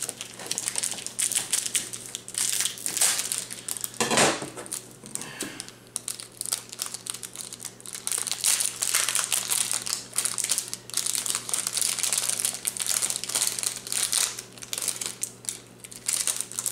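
A bag crinkling and crackling irregularly as a crankbait lure is worked out of its packaging by hand, with one louder rustle about four seconds in.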